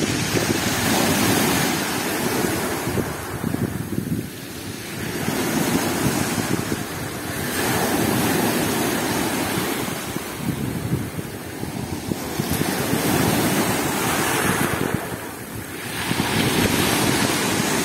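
Storm surf on the Black Sea breaking and washing up over a pebble shore, the rush of foam swelling and fading with each wave every few seconds, with wind buffeting the microphone.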